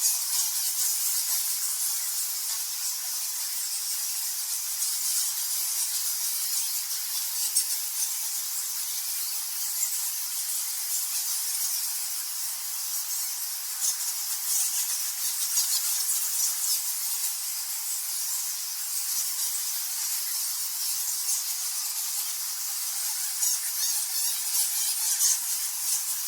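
A colony of bats squeaking and chittering without pause: a dense mass of many high-pitched calls and clicks overlapping.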